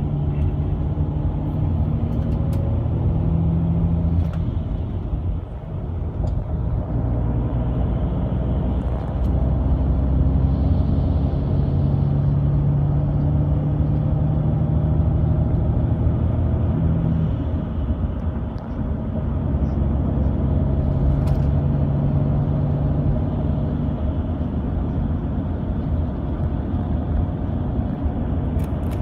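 Mercedes-Benz Tourismo coach driving at speed, heard inside the passenger cabin: a steady low engine and drivetrain drone over tyre and road noise, dipping briefly twice.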